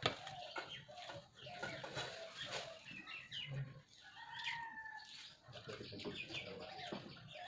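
Chickens clucking in short pitched calls, with one longer call about four and a half seconds in. Over them come short clicks of someone eating rice by hand from a metal plate, the sharpest right at the start.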